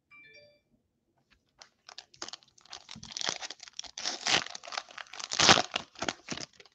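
Shiny foil wrapper of a trading-card pack being torn open and crinkled by hand: a dense crackling that builds over a few seconds and is loudest near the end.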